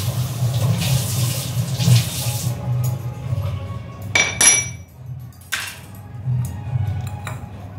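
Tap water running into a kitchen sink during dishwashing, stopping about two and a half seconds in. About four seconds in, a single ringing clink of a metal utensil, then a sharper knock a second later.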